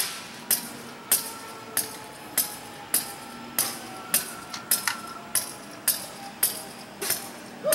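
Railroad warning bell striking steadily, about one and a half to two strikes a second, each strike a sharp metallic clang with a short ring.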